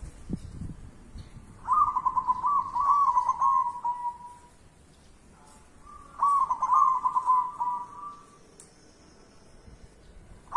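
Zebra dove (perkutut) cooing: two song phrases of staccato coos, each about two seconds long, the second starting about four seconds after the first.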